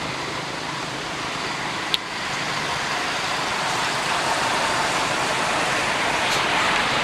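A steady rushing noise that slowly grows louder, with one sharp click about two seconds in.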